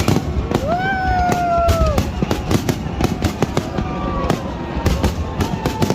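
Fireworks going off in quick succession: a dense run of sharp bangs and crackles over a continuous low rumble. A long whistling tone rises and holds for about a second and a half near the start, and a second one slowly falls from about four seconds in.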